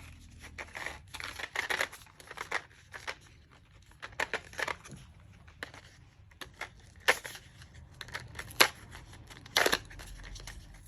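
Plastic battery blister packaging being crinkled and torn open by hand: a run of irregular crackles and sharp clicks, the loudest near the end.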